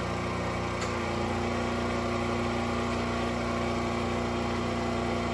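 Portable gasoline generator engine running steadily. A faint click comes just before a second in, and the engine note then changes and settles as a 1500 W space heater is put on one leg of the generator, an unbalanced load.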